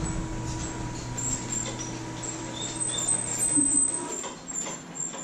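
Electric motor of a hi-lo chiropractic adjusting table humming steadily as it tilts the patient upright, with short high squeaks over it; the motor stops about four seconds in.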